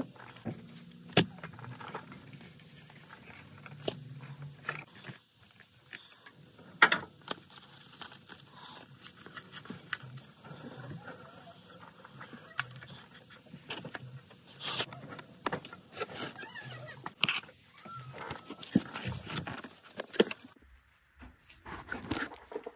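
Hand tools clicking and clinking against metal as the water pump bolts are tightened, in irregular sharp clicks and knocks, the loudest about seven seconds in.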